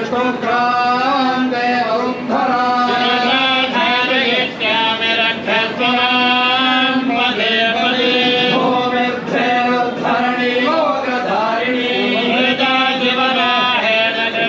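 Group of priests chanting a Vedic hymn in unison, holding mostly level notes with small rises and falls and brief pauses for breath.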